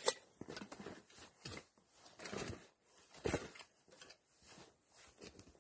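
Digging by hand in gravelly soil: irregular crunching scrapes of dirt and stones being worked loose, with sharper scrapes right at the start and a little past three seconds in.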